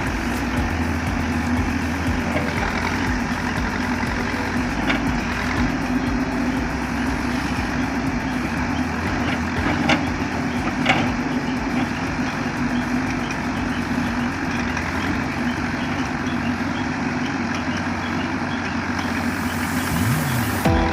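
Heavy diesel construction machinery running steadily, a continuous engine drone, with two sharp knocks about ten and eleven seconds in.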